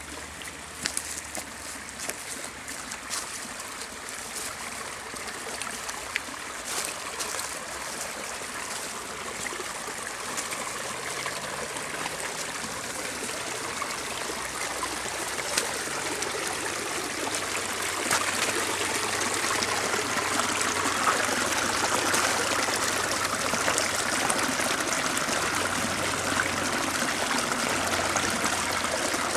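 Shallow rocky creek trickling and splashing over stones, growing steadily louder, with a few sharp clicks in the first several seconds.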